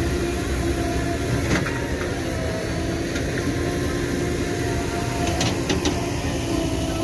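Heavy diesel machinery engine running steadily. There is a sharp knock about a second and a half in and a quick cluster of knocks a little after five seconds.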